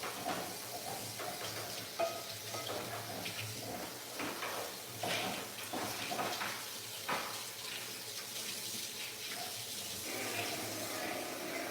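A steady kitchen hiss with scattered clinks and knocks of utensils or cookware.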